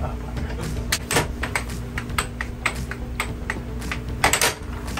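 Air hockey rally: quick, irregular clacks of the plastic puck striking the mallets and the table's rails, with the loudest flurry of hits near the end. Underneath runs the steady low hum of the table's air blower.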